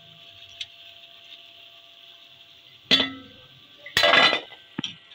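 Oil sizzling steadily as small besan (gram-flour) fritters deep-fry. About three seconds in, a metal wire skimmer clanks against the pan with a short ring. About a second later a skimmer-load of fried fritters is tipped into a bowl with a clatter, followed by a few small clicks.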